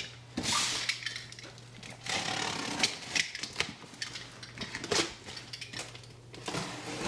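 Cardboard boxes being handled and shifted against one another: several short scraping, rustling spells with light knocks and clicks.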